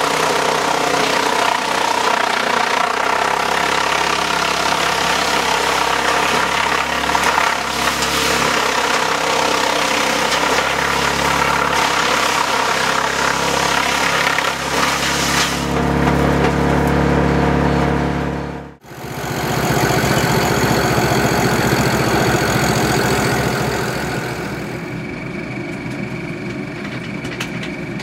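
FARMI CH260 HFC double-disc wood chipper running steadily under load, chipping sawmill slabs and tree tops fed in by a crane grapple. After an abrupt cut about two-thirds in, a different steady machine sound with a fast even pulsing follows, dropping in level near the end.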